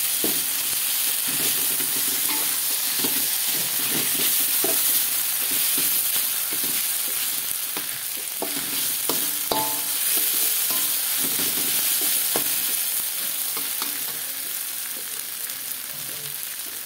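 Blended dried-chilli paste with lemongrass and shallots sizzling in hot oil in a metal wok, stirred and scraped with a metal spatula that clinks against the pan. The stirring stops near the end while the sizzling carries on.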